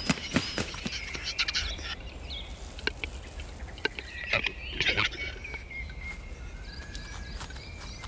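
Capercaillie cocks fighting on a lek: a quick run of sharp clicks and knocks in the first second and a half, and another flurry about halfway through, with thin whistled bird calls throughout.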